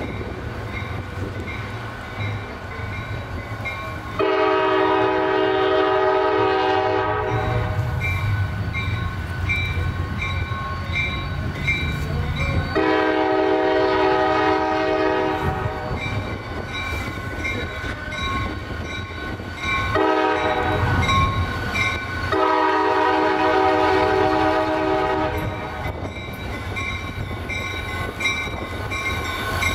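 CSX diesel locomotive's multi-note air horn sounding the grade-crossing signal, long, long, short, long, over the rising rumble of its engine as it approaches. A crossing bell dings steadily about twice a second between the blasts.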